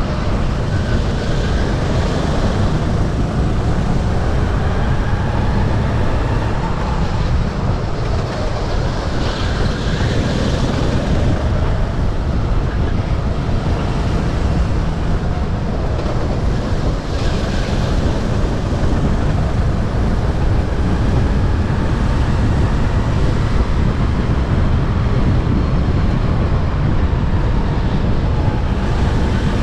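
Sodi RT8 go-kart engine running flat out during a race, its pitch rising and falling with the kart's speed through the corners, over heavy wind buffeting on the microphone.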